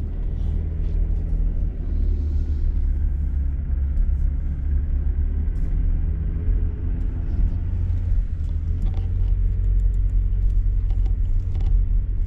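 A car being driven, heard from inside the cabin as a steady low rumble of engine and tyre noise.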